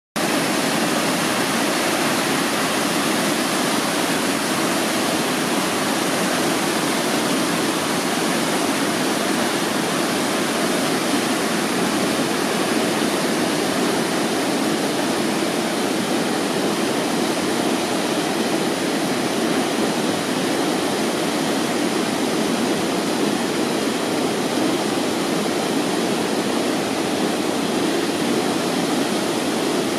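Whitewater river rapids below a waterfall, a steady, unchanging rush of water.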